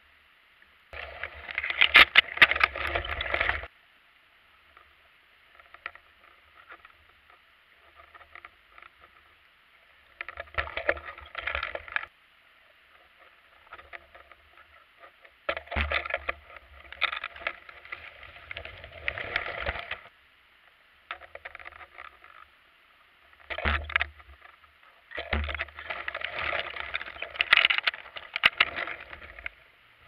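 Underwater noise picked up by a camera in a waterproof housing on a swaying fishing rig: bursts of rushing and rattling, about five main ones of one to four seconds each, with quiet gaps between them.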